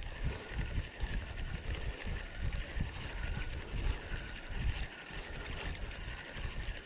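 Fishing reel being cranked, its gears running in a steady fine clicking as line is wound in on a bottom rod to check for a fish. An uneven low rumble runs underneath.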